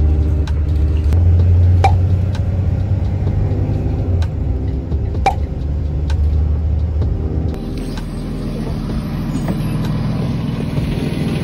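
School bus running, heard from inside the cabin: a loud, steady engine hum with two sharp rattles. About two-thirds of the way through the engine note drops away to a quieter, rougher running.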